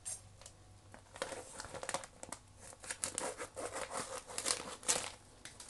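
Plastic bag of banana pieces crinkling and rustling as it is handled, in an irregular run of sharp crackles.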